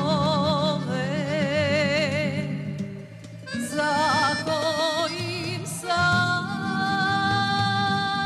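A woman singing a sevdalinka with wide vibrato, accompanied by accordion. There is a short break about three seconds in, and she holds a long note near the end.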